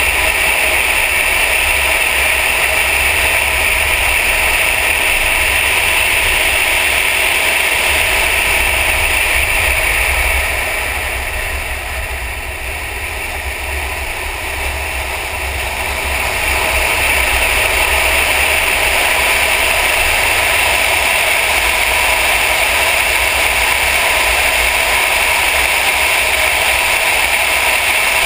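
Mercedes-AMG car lapping a track at speed, heard as a steady loud rush of engine, tyre and wind noise with a heavy low rumble. It eases off for about five seconds a little before the middle, through a corner, then builds again.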